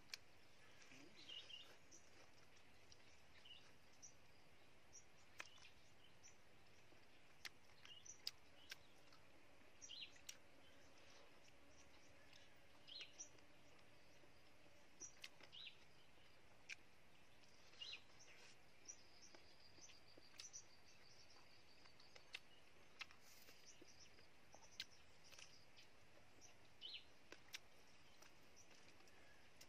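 Faint eating sounds from fried fish: scattered sharp mouth clicks and chewing, with bird chirps in the background over a low hiss.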